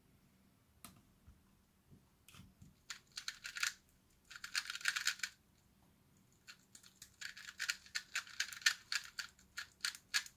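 A 2x2 speed cube being turned fast, rapid plastic clicking in several runs with short pauses between them.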